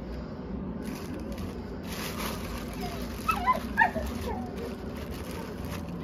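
Doberman whining, a quick run of short, high whimpers that rise and fall in pitch in the middle: a dog impatient to be given its food.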